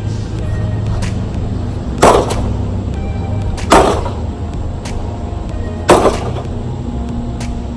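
Three heavy blows landing on a microwave, each a sharp crash with a short ring, about two seconds apart, over background music.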